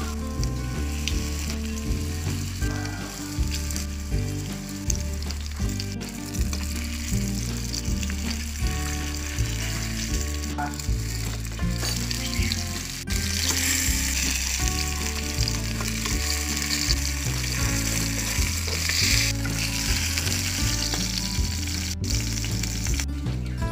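Flour-dredged salmon pieces shallow-frying in hot oil in a pan: a steady crackling sizzle, which grows louder about halfway through for several seconds.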